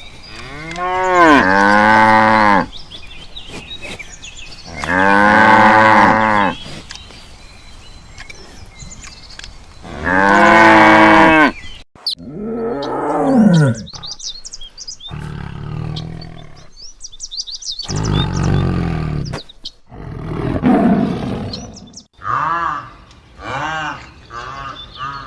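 Cattle mooing: three long, loud moos a few seconds apart, followed by several shorter, lower moos and grunts.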